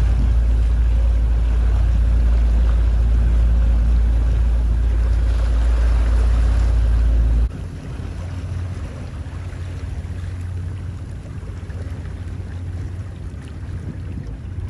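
Wind buffeting the microphone over open water, with a heavy low rumble and the wash of water around a small boat. The rumble drops off suddenly about halfway, leaving a quieter hiss of wind and water.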